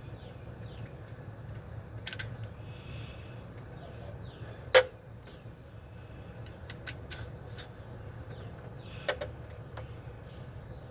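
Scattered clinks and knocks of metal tools and engine parts being handled, with one sharp knock about five seconds in and a few light ticks a couple of seconds later, over a steady low hum.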